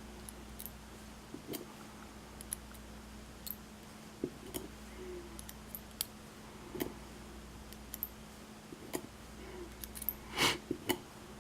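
Sporadic small metallic clicks and taps of tiny lock pins being handled and loaded back into a lock's plug, with a short cluster of louder clicks about ten seconds in. A faint steady hum runs underneath.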